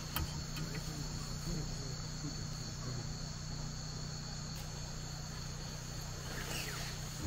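Steady chorus of night insects, crickets trilling without pause at two high pitches.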